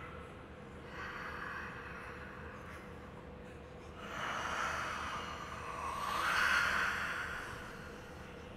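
A woman breathing heavily: a few long, noisy breaths that swell and fade, the loudest near the end, over a faint steady hum.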